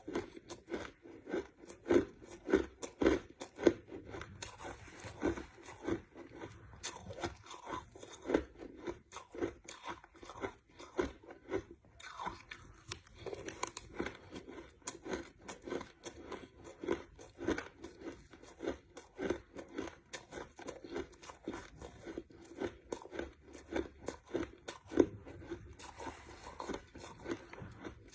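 Crushed ice being chewed, with rapid repeated crunches, several per second.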